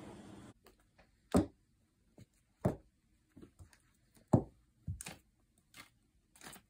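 A cat grappling and kicking at a pile of clothes on a carpeted floor, making a string of irregular dull thumps and knocks. The loudest come a little over a second in and again about four seconds in. A brief steady room hiss at the start cuts off abruptly.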